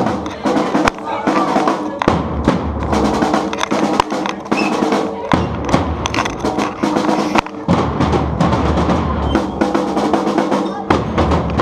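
Street percussion band drumming: bass drums and snare drums playing a fast, dense rhythm with snare rolls.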